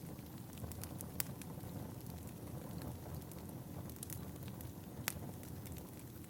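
Firewood burning: a steady low rumble of the fire with scattered sharp crackles, a louder pop about a second in and another about five seconds in.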